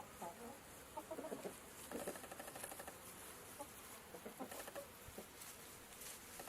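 Faint bird calls: short, clucking, fowl-like notes at irregular intervals over a fast, even pulsing in the background.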